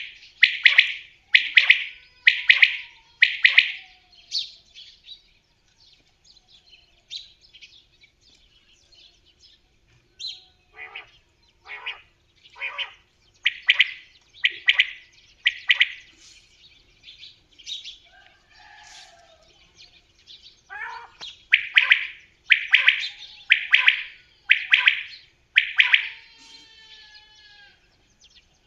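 Bird calling: loud, sharp, short notes repeated about every 0.7 s in three series of five to eight, with fainter calls between the series.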